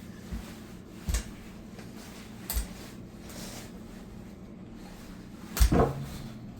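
A few scattered knocks and thumps, about four, the loudest near the end, like handling noise from bumping and shuffling about.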